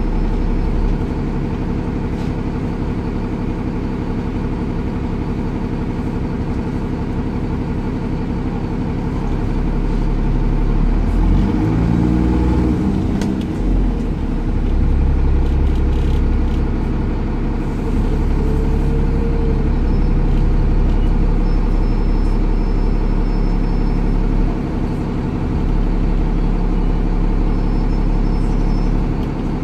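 Cummins ISCe six-cylinder diesel of a Dennis Trident 2 double-decker bus running under way, heard from inside the passenger saloon. About twelve seconds in the engine note climbs as the bus accelerates, then settles to a steady run.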